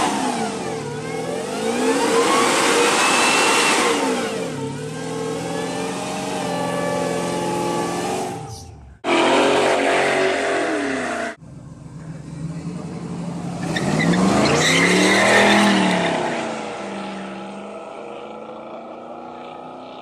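A Chrysler doing a burnout, its engine revving hard up and down over spinning tyres. After abrupt cuts, street cars accelerate hard, one passing close with its engine note rising and then falling about fifteen seconds in.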